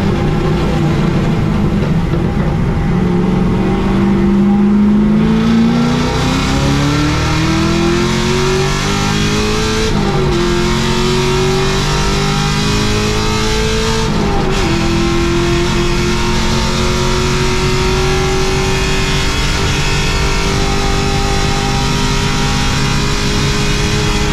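Holden VY Commodore race car's engine heard from inside the cabin under hard acceleration, its pitch climbing, with two quick upshifts about ten and fourteen seconds in, then rising slowly on the long straight. Steady road and tyre noise underneath.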